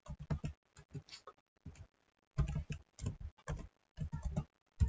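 Computer keyboard keys being typed: irregular runs of short clicks, with a brief pause about two seconds in.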